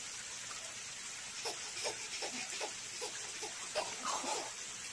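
A baby giggling in short bursts over a steady hiss.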